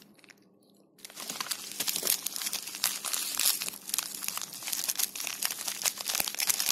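Plastic mailer and clear plastic wrapping crinkling and rustling under hands opening a package. It starts about a second in, after a short quiet.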